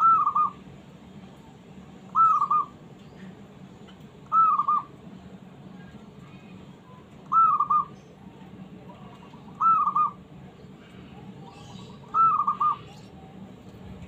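Zebra dove (perkutut) cooing: six short trilled coos, one about every two and a half seconds.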